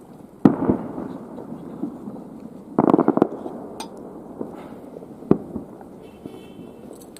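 Fireworks shells bursting: a single loud bang about half a second in, a quick cluster of several bangs around three seconds, and another single bang a little after five seconds.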